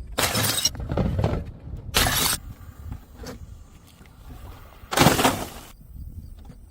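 Glass bottles smashing: three loud shattering crashes, one near the start, one about two seconds in and one about five seconds in, with smaller clinks and knocks of falling pieces between.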